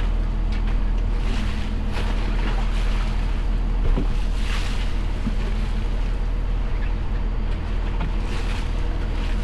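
Boat engine running steadily under water wash and wind on the microphone, with a single knock about four seconds in.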